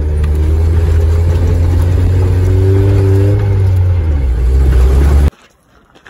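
Toyota 4x4 truck driving on a rough gravel road, heard from inside the cab: a loud, steady engine and road rumble, with the engine note rising and then easing off. It cuts off abruptly about five seconds in, leaving only faint outdoor quiet.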